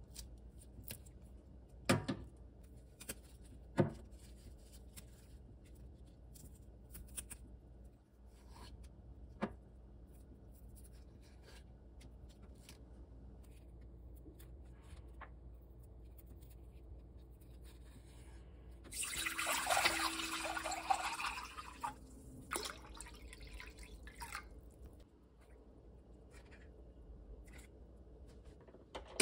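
Hands snapping mallow stems and peeling off their stringy outer skin over a stainless steel bowl in a sink: faint rustles and small sharp snaps, the loudest about two and four seconds in. About nineteen seconds in, water runs into the sink for about three seconds.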